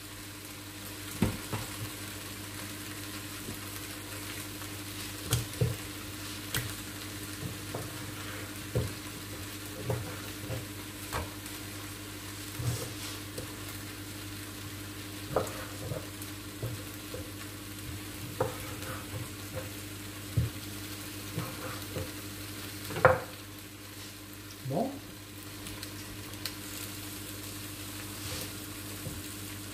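Kitchen knife cutting raw chicken on a wooden chopping board: scattered short sharp taps and knocks of the blade on the wood, the loudest about 23 seconds in, over a steady hiss and low hum.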